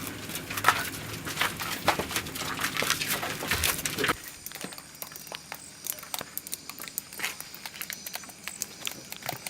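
Footsteps scuffing and crunching over a gritty floor, with busy irregular clicks and crackles for about four seconds, then dropping suddenly to a quieter stretch of scattered clicks.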